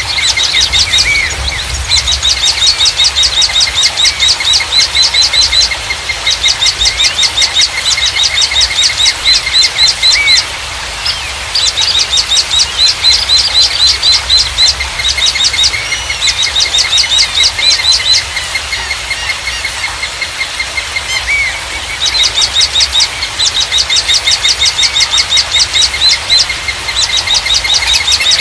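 Songbirds singing: phrases of a few seconds made of a fast series of high, sharp repeated notes, about ten a second, broken by short pauses, over steadier lower chirping from other birds.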